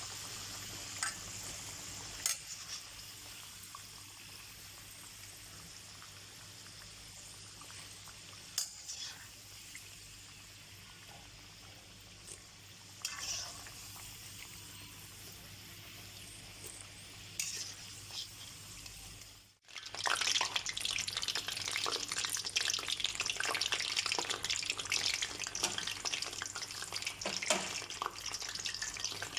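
Food frying in hot oil in a pan: a quiet steady sizzle with a few sharp pops at first, then, after a brief break about two-thirds through, a much louder, dense crackling sizzle.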